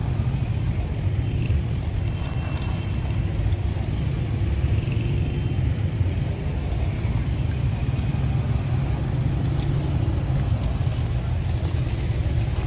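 Steady low rumble of city street traffic heard while walking, with no clear events standing out.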